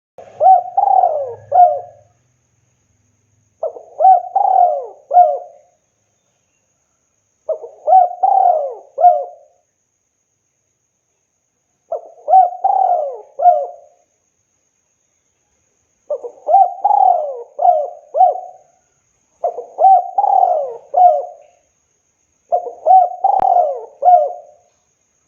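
Spotted dove (tekukur) cooing: seven repeated phrases, each a quick run of several coos lasting about two seconds, coming every three to four seconds.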